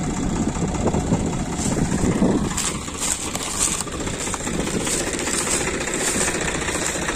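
Swaraj tractors' three-cylinder diesel engines running steadily, with a few light clicks around the middle.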